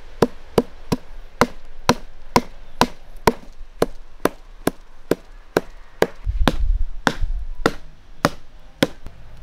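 A hammer pounding a strip of tree bark on a wooden stump, about two even blows a second, beating the bark into soft shredded fibres.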